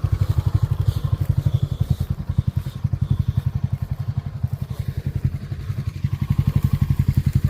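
Small vehicle engine idling with an even, rapid putter, about ten beats a second.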